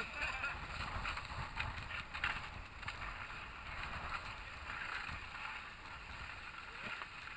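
Snowboards scraping and sliding over the snow, with wind rumbling on the microphone underneath.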